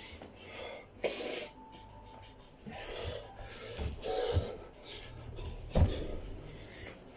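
Heavy, hard breathing of a man doing burpees, with repeated dull thuds of his hands, feet and jump landings on a carpeted floor. The loudest thud comes near the end.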